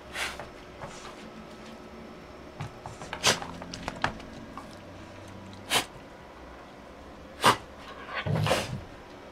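A dog barking in a few short, sharp barks spaced a couple of seconds apart, with a longer bark near the end.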